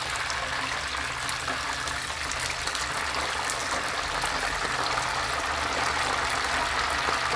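Whole chicken deep-frying in a pot of hot oil: a steady sizzle full of fine crackles, with a low hum underneath.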